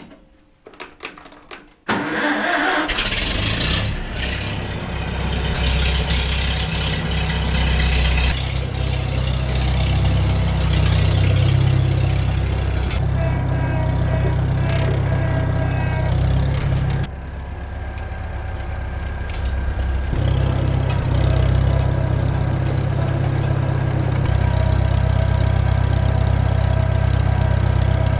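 A Farmall tractor engine starts about two seconds in after a few clicks, then runs steadily, its speed changing several times.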